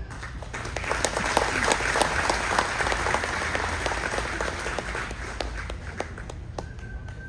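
Audience applauding, strongest in the first few seconds and dying away near the end.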